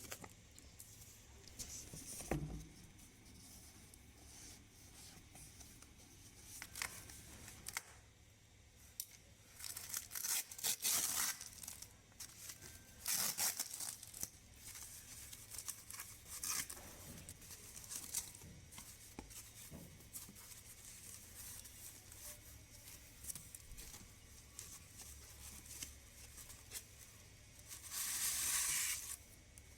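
Intermittent tearing and crinkling of paper or plastic, in several short bursts separated by quieter handling.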